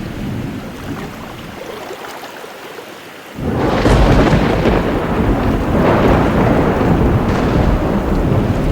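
Thunderstorm: a low thunder rumble dies away, then about a third of the way in a sudden loud thunderclap breaks and gives way to heavy rain and continued rumbling thunder.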